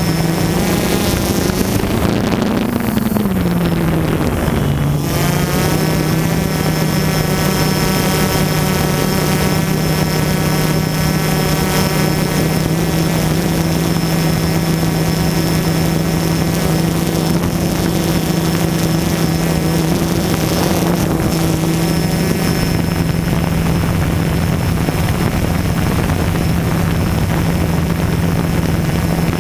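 DJI Phantom quadcopter's propellers whining steadily, heard from the drone's own onboard camera. The pitch rises and then drops about two to five seconds in as the drone manoeuvres, then holds steady.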